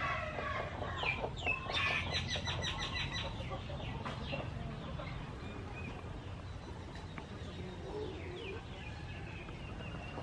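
Chickens clucking, with a quick run of repeated calls between about one and three seconds in and fainter clucks later, over a steady low hum.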